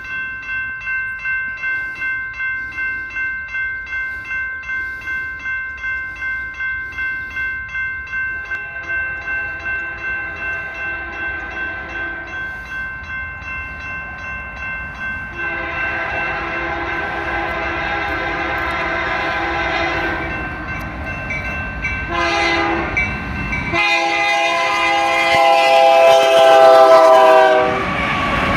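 Railroad grade-crossing bell ringing about twice a second as a BNSF freight train approaches. The locomotive horn sounds the crossing signal: long, long, short, long. The last blast drops in pitch as the lead locomotive passes, with engine and wheel noise rising to its loudest.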